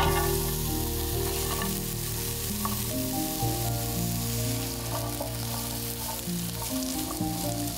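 Sliced red onions and garlic hitting hot oil in a frying pan and sizzling, the sizzle starting suddenly as they go in, then stirred with a spatula.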